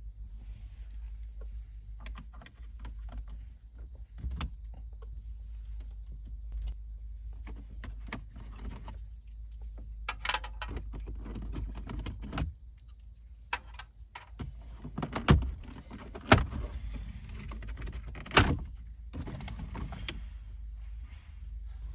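Scattered clicks, rattles and knocks of hands and tools working on plastic car interior parts around the air-conditioning switch, over a steady low hum. Three sharp knocks or snaps come about two-thirds of the way through, louder than the rest.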